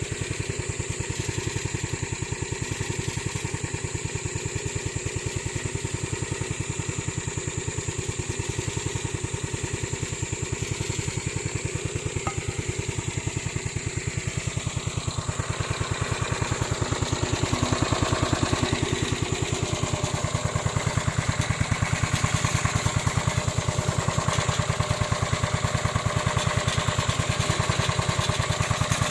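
Small engine of a remote-controlled lawn mower running steadily with a fast, even firing beat, getting a little louder about halfway through.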